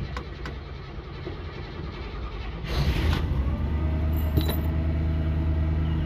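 1964 Buick Special's V8 engine idling through its stock exhaust, a fairly quiet, steady note. About three seconds in it grows louder and fuller and then holds steady.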